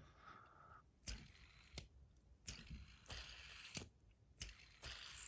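Faint clicks and soft whirring from bar fidget spinners being handled and spun, with a few separate light clicks.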